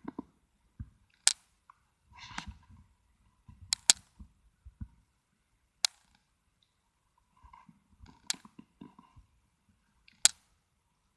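Five sharp, loud clicks spaced about two to two and a half seconds apart, with soft rustling handling noise between them.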